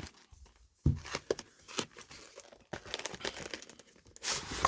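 Cardboard and plastic packaging being handled and opened: irregular crinkling and rustling with sharp knocks, the loudest knock about a second in and a loud rustle near the end.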